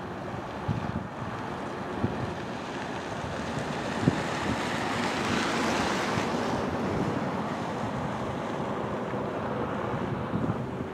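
Shoreline ambience: a steady rush of wind and wave wash that swells for a few seconds near the middle, with a few faint knocks.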